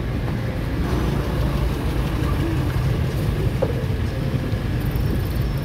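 Busy night street-market ambience dominated by a steady low rumble, with faint voices now and then.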